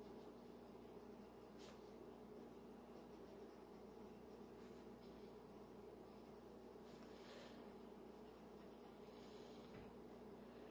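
Near silence: a colored pencil scratching faintly on paper in a few short strokes, over a steady low hum.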